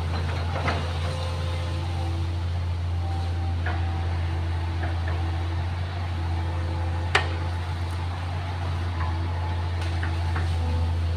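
Excavator's diesel engine running steadily with a low drone, a few faint held tones over it, and several sharp knocks, the loudest about seven seconds in.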